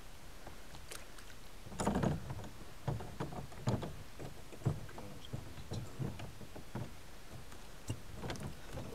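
Knocks and bumps from a small boat as a person shifts about and leans over its side, with a louder thump about two seconds in and then single knocks roughly once a second.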